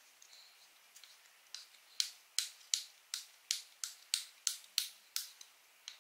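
Size 3 Allen key tightening an M4 bolt into its nut: a run of about a dozen sharp clicks, roughly three a second, starting about a second and a half in, as the key is worked round in the bolt head.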